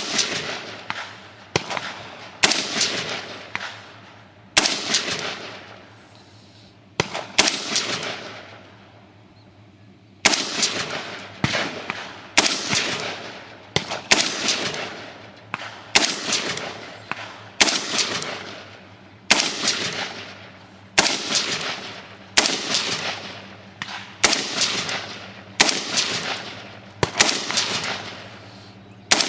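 AR-15 rifle fired in semi-automatic, one shot at a time at roughly one a second, about two dozen sharp cracks, each ringing out afterwards. There is a pause of a couple of seconds about a third of the way in, then steady firing resumes, shooting through the magazine until it runs empty.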